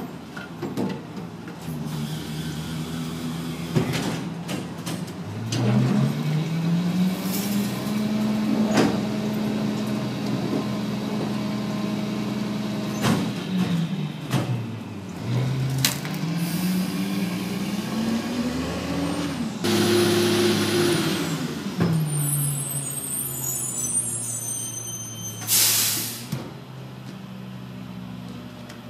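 Rear-loading garbage truck's engine revving up and holding high twice to drive the hydraulics of the cart tipper and packer, with sharp bangs of carts and bins against the hopper. A short, loud air hiss comes near the end.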